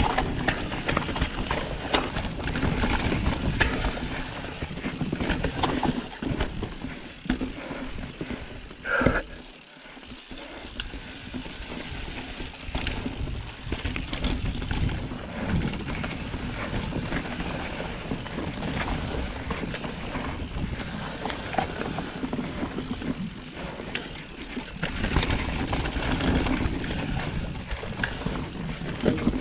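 Mountain bike descending a rough downhill trail: tyre noise with frequent irregular rattles and knocks over bumps, under wind on the microphone. A short high squeal sounds about nine seconds in, followed by a brief quieter moment.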